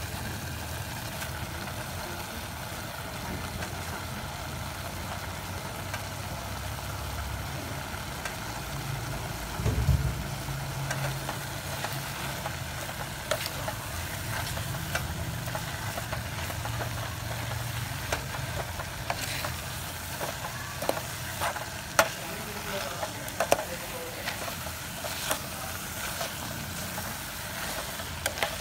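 Mushrooms and corn frying in oil in a steel pot, sizzling over a low steady hum, with one thump about ten seconds in. In the second half a spoon stirs in fresh leafy greens, knocking and scraping against the pot more and more often.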